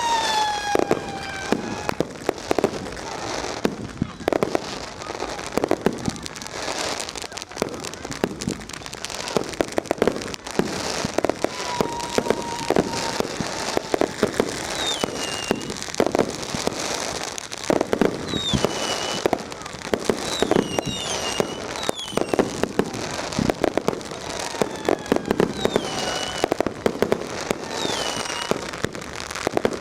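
Fireworks and firecrackers going off without pause, a dense barrage of bangs and crackles, with several short falling whistles over it.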